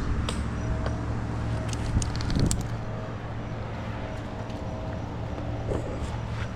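An engine running steadily at low revs, with scattered light clicks and knocks over it and a louder knock about two seconds in.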